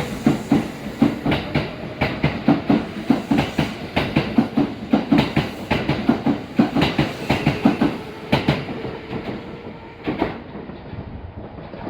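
Kintetsu electric train passing, its wheels clattering over the rail joints in a quick, even rhythm over a faint steady whine. The clatter thins out after about eight seconds as the last cars go by.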